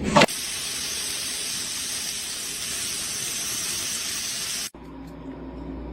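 A brief knock, then a steady hissing noise that cuts off suddenly about three-quarters of the way through, followed by a fainter low hum.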